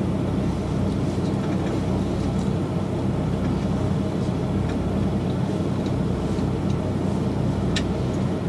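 Diesel engine of a standing KiHa 185 series railcar idling, a steady low drone heard inside the carriage. A sharp click comes near the end.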